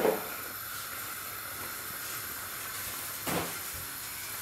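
Steady faint room hiss, broken by a short knock right at the start and another a little over three seconds in, as a plastic toy tool is handled.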